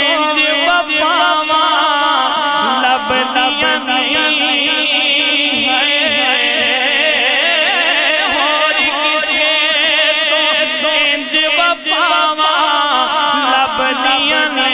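A man singing a Punjabi devotional kalaam solo into a microphone, drawing out long, ornamented held notes that waver in pitch.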